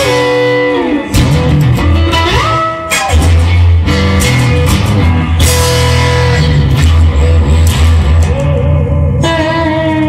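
Instrumental rock-blues music: an electric guitar plays a lead line with notes that slide and bend up and down over a steady low bass and regular beats.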